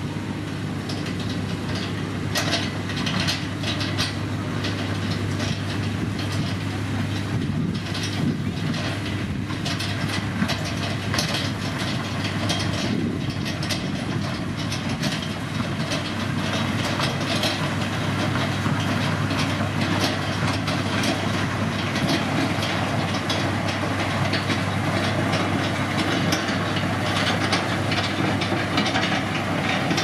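Heavy road-construction machinery at work: a steady diesel engine hum with irregular clanking and rattling on top, getting a little louder about halfway through.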